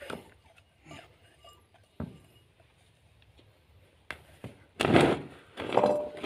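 Crushed garlic being knocked and scraped out of a wooden mortar into a plastic bucket of wheat bran. There are a few sharp taps about a second apart, then two louder rustling scrapes near the end.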